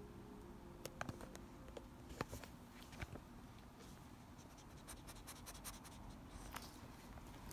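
Faint scratching and scattered clicks of a Boston terrier moving about on a fabric couch close to the phone, with handling rustle.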